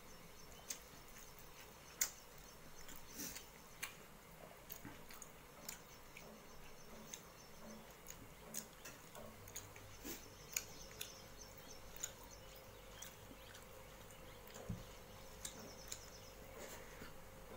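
A person eating rice and fish curry by hand: irregular wet chewing clicks and lip smacks, with fingers mixing rice on a metal plate.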